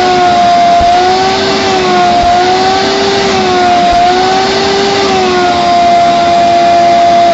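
Shop vac running, sucking soapy water out of old cloth seat covers: a loud steady motor hum over a rushing hiss, its pitch rising and dipping every second or so as the nozzle is worked over the fabric.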